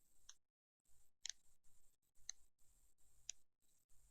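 Faint, scattered computer mouse clicks, roughly one a second, each placing an anchor point with the pen tool.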